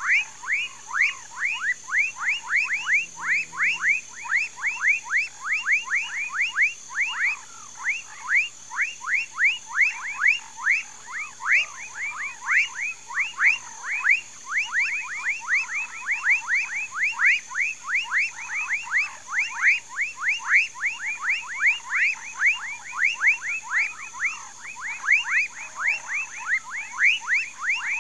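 Chorus of many frogs, a dense, unbroken run of short calls that each sweep down in pitch, several a second and overlapping. A steady high-pitched drone runs underneath.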